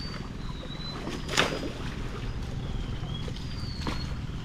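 A small boat engine idles with a steady low chug. A sharp thud comes about a second and a half in and a weaker one near the end, over thin, short high chirps.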